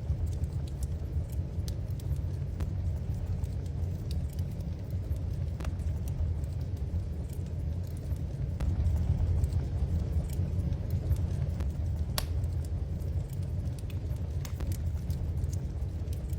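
Wood fire crackling in a fireplace, with scattered sharp pops over a steady low rumble.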